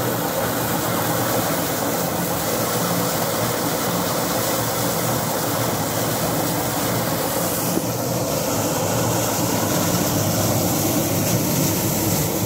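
Belt-driven paddy threshing machine running steadily, its spinning drum beating the grain out of bundles of rice stalks held against it.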